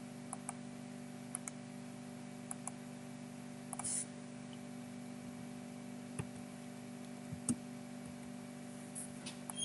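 Scattered single clicks of a computer mouse and keyboard, a few to a second at most, over a steady low hum.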